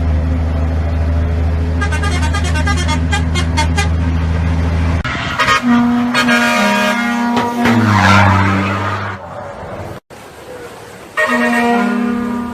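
Vehicle horns sounding one after another: first a long, steady low horn blast with a fast pulsing of about four or five beats a second over it from about two seconds in, then a horn stepping through several notes and falling to a much lower note. After a brief break near the end, another horn blast.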